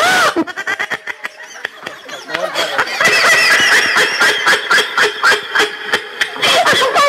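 Crowd of onlookers laughing, with rapid chuckling pulses that swell into louder, overlapping laughter and voices about halfway through.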